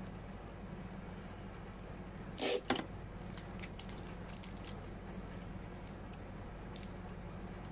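Light clicks and rustles of hands working baby's breath sprigs into a rose garland, with two sharp snaps close together about two and a half seconds in, over a steady low hum.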